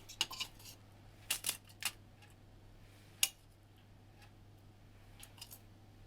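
Scattered sharp clicks and taps at irregular intervals, a few close together near the start and one strong one about three seconds in, over a faint steady low hum.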